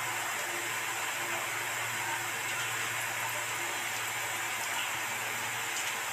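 Small besan-batter pakoras deep-frying in hot oil in an aluminium kadai: a steady sizzle.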